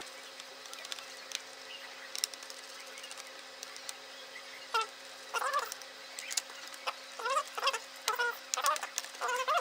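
Plastic clicks and short squeaky creaks as the laptop's top cover (palm rest) is pried off its clips. The clicks are scattered throughout, and the creaks come in a run from about halfway in. A steady low hum runs underneath.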